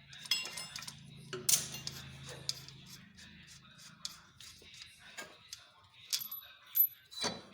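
Metal tools and loose scooter clutch parts clinking and knocking as they are handled, a scattered series of sharp clinks with the loudest knocks near the end.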